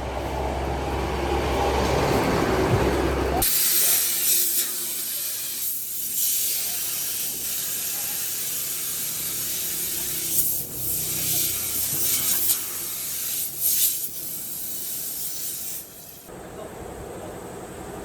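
Low machine rumble, then a loud, high hiss of escaping compressed air that runs for about thirteen seconds, wavering a few times, and cuts off suddenly.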